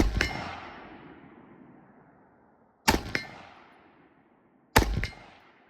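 Three rifle shots, about three and then two seconds apart, each followed a fraction of a second later by a short metallic ring from a steel target being hit.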